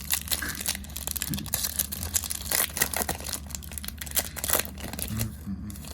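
Crinkling and tearing of a Panini Prizm card pack's wrapper as it is handled and opened, a quick irregular run of crackles.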